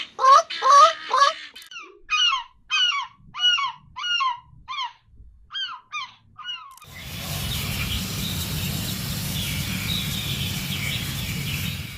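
Geese honking in repeated calls: a quick run at first, then slower downward-sliding honks about two a second. About seven seconds in they cut off and a steady rushing noise takes over.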